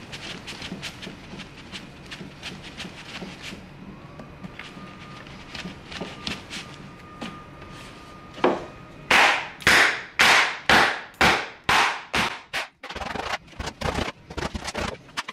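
A new leather Wilson A2000 fastpitch softball glove being worked by hand to break in its pocket: a run of light quick leather slaps and clicks, then about a dozen loud, sharp slaps roughly two a second in the second half, followed by a few lighter, quicker ones.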